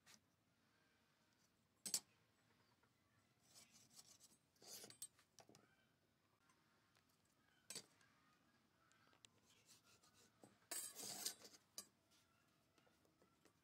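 Quiet handling of a steel combination square and a pencil on a pine frame: a few sharp taps as the square is set down on the wood, and scraping strokes, the longest about a second near the end.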